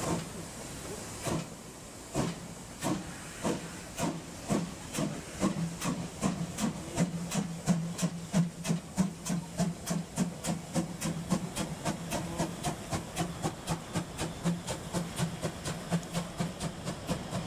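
Narrow-gauge DR class 99.77 steam tank locomotive pulling away with its train: its exhaust chuffs begin about a second in and quicken steadily to several a second as it gathers speed, over a hiss of escaping steam from the cylinders.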